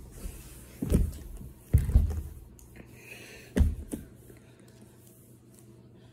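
A few dull knocks and bumps, four of them in the first four seconds, the loudest about a second and two seconds in, then only a faint low hum.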